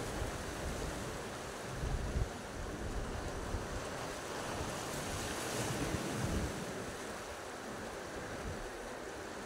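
Sea waves washing against rocks, with wind buffeting the microphone in low gusts.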